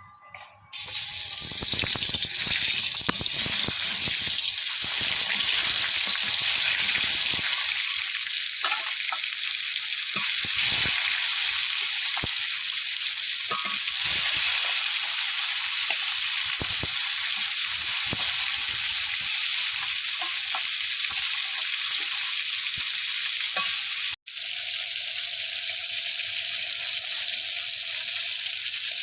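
Fish pieces, rubbed with salt and turmeric, frying in hot mustard oil in a kadai: a loud, steady sizzle that starts suddenly about a second in as the fish goes into the oil.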